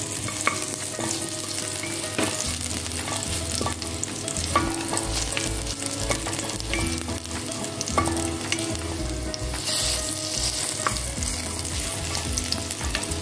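Chopped garlic sizzling in hot oil in a frying pan while a wooden spatula stirs it, with occasional sharp clicks as the spatula scrapes and knocks the pan.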